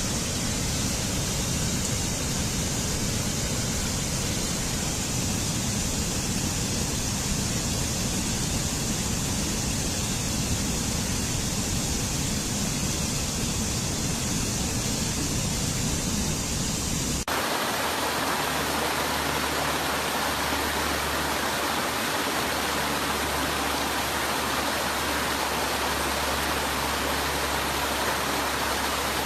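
Steady rushing water of a waterfall or fast stream. About seventeen seconds in it cuts abruptly to a second recording of rushing water with a different character, less hissy on top.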